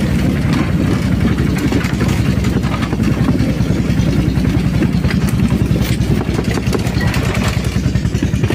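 Small motorcycle-type engine of a motorised rail lorry running steadily under way, a constant pulsing engine note with some light rattling clicks.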